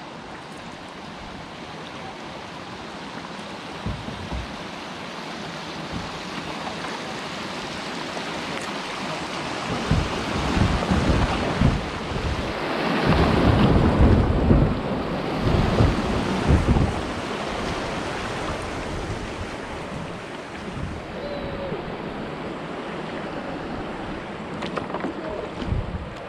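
Rushing water of a small river riffle as a kayak runs down a shallow chute. It builds to its loudest about halfway through and then eases off as the boat reaches calmer water, with low buffeting thumps on the microphone.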